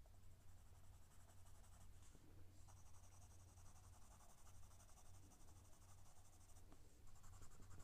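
Graphite pencil shading on paper: faint, steady scratching of the lead, strongest from about two and a half to six and a half seconds in.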